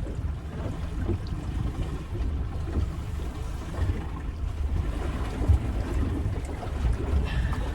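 Wind buffeting the microphone on a small boat at sea, with water sloshing against the hull, making an uneven low rumble.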